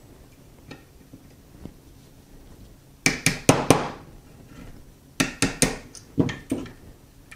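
Small hammer tapping a punch to drive out the Glock pistol frame's rear pin, the trigger housing pin: two runs of sharp metallic taps, about four and then about six, with a pause of about a second and a half between them.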